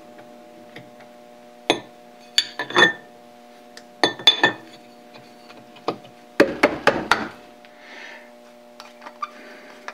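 Metal parts of a dividing head clinking and knocking as an indexing plate is fitted by hand: a string of sharp metallic taps and clicks, the heaviest cluster about six to seven seconds in.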